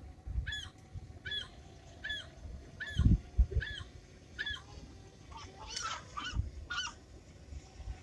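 Gulls calling over and over, a short rising-and-falling call about twice a second, with several birds overlapping near the end. A few low thumps sound underneath.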